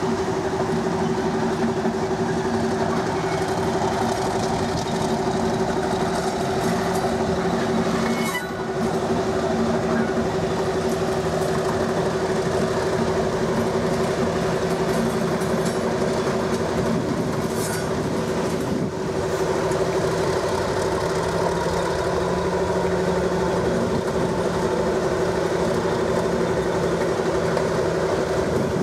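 Class 50 diesel locomotive 50007 'Hercules' and two Colas Rail Class 56 diesels, all 16-cylinder engines, running as they move slowly past. The engines give a steady drone with a constant hum above it.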